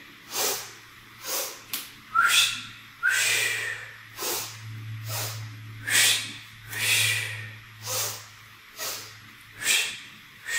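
A woman's forceful yoga breathing, the warrior breath: quick sharp breaths about a second apart, double inhales through the nose and double exhales through the mouth. A low steady hum runs beneath.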